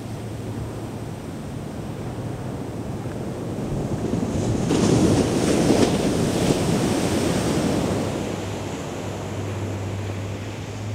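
Ocean surf breaking on a sandy beach. The wash swells to its loudest about five seconds in, then eases off.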